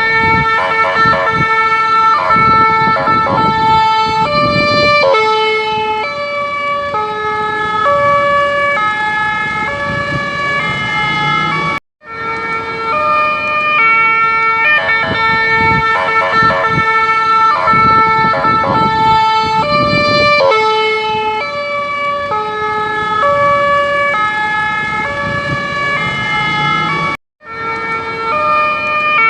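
Electronic ambulance siren cycling through tone variations: quick warbling passages and notes that step between different pitches, each held for about half a second. The sequence breaks off briefly about twelve seconds in, starts over with the same pattern, and breaks off again near the end.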